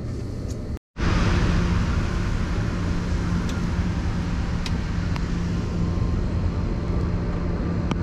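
An engine running steadily, an even low drone with a constant hum, with a few faint ticks; the sound drops out completely for a moment just under a second in.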